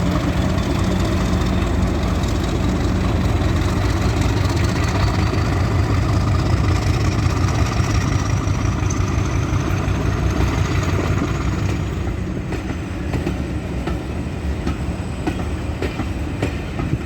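English Electric Class 50 diesel locomotives (16-cylinder 16CSVT engines) working hard, a deep, loud engine note with a high whine rising steadily over the first ten seconds. Later the sound eases a little and wheels click over rail joints as the train goes by.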